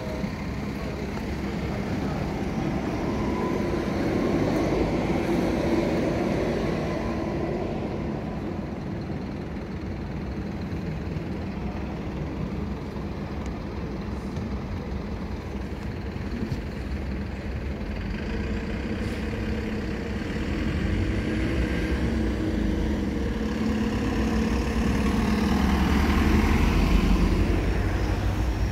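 Street traffic: motor vehicles running past with a steady engine hum, growing louder around five seconds in and again near the end as a heavier vehicle passes.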